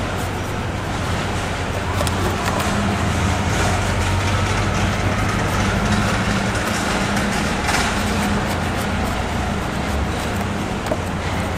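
Steady low drone of vehicle engines and road traffic.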